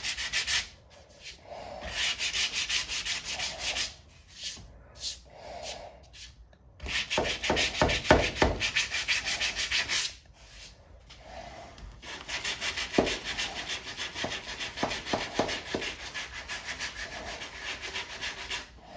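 Sandpaper on a hand sanding block scraping back and forth over cured body filler on a Chevy C10 cab seam, in quick even strokes. The strokes come in several bursts with short pauses between them. This is the first coat of filler being block-sanded down to show the low spots.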